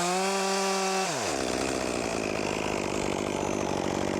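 Chainsaw running at full throttle, then dropping in pitch about a second in as it bites into the wood and keeps cutting under load.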